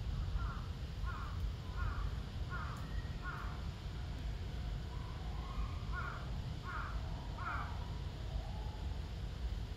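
A crow cawing: a run of about five caws at an even pace, then after a short pause about three more, over a steady low background rumble.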